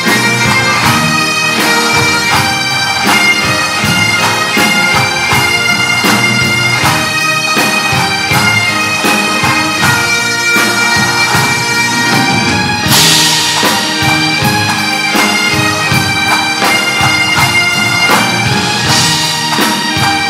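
Highland bagpipes playing a tune over their steady drones, with pipe-band drums beating time. A cymbal crash comes about thirteen seconds in.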